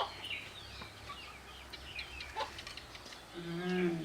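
Birds chirping repeatedly in short, high, falling notes. A short sharp sound comes at the very start, and a brief low hum, like a voice, is heard about three and a half seconds in.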